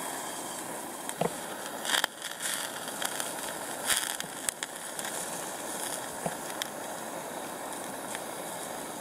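Sausages sizzling on the wire mesh of a Uniflame mini roaster over a gas canister stove, with the burner's steady hiss and a few sharp clicks as chopsticks turn the sausages on the grill.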